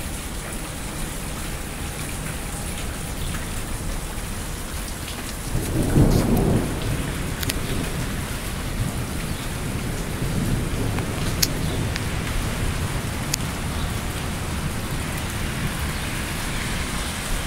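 Steady rain falling during a thunderstorm, with a low rumble of thunder swelling about five and a half seconds in and fading over a second or two, and a fainter rumble a few seconds later.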